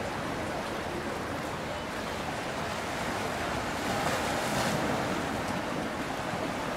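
Steady rush of water from a boat moving on the river, with wind noise on the microphone; it swells briefly about four seconds in.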